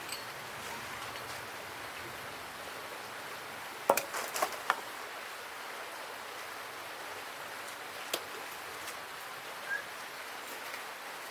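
Steady hiss, with a quick run of sharp knocks about four seconds in and a single knock near eight seconds.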